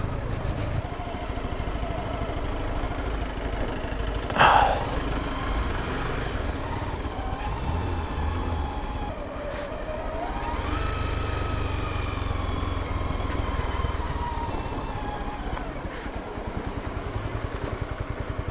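Motorcycle engine running as the bike rides slowly, with a steady low rumble and a short loud burst about four and a half seconds in. Around ten seconds in the engine note rises as it accelerates, then slowly eases off; near the end the rumble pulses evenly as the bike slows.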